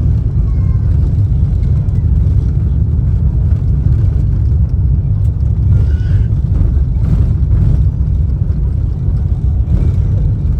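Loud, steady low rumble of cabin noise inside an Airbus A350 airliner during landing: engine and airflow noise heard from a passenger seat.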